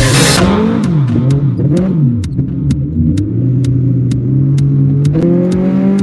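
VW Gol's engine heard from inside the cabin, revved up and down in quick throttle blips, then held on a steadily rising note that steps up higher about five seconds in. A light ticking about four times a second runs under it.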